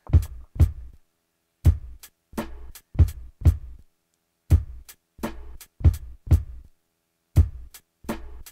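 Hip hop drum-machine beat with no vocals yet: punchy hits, each with a deep bass tail, in a syncopated pattern with short silences between them.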